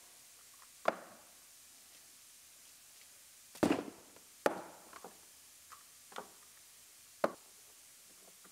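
Hard plastic parts of an EVAP vent solenoid and vapor canister being handled and set down on a wooden workbench: sharp clacks about a second in, two louder ones around the middle and another near the end, with lighter taps between.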